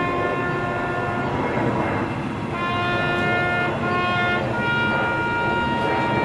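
A brass instrument playing slow, long held notes, with a pause of about a second near the start.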